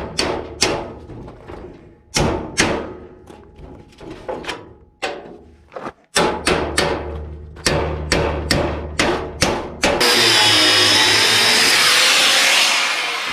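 Repeated sharp strikes on metal, two or three a second at an uneven pace, as tools work at tough adhesive on a steel RV frame. About ten seconds in, a power tool starts and runs loud with a high whine, easing off near the end.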